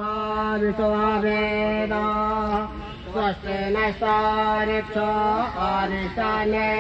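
Hindu devotional chant sung in long, held notes, with short breaks between phrases.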